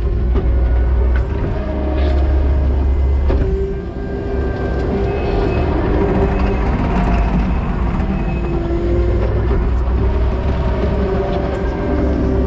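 Kubota SVL90-2 compact track loader's four-cylinder turbo diesel running under load, with a hydraulic whine that wavers up and down in pitch and occasional clanks as the tracks drive over and pack gravel backfill.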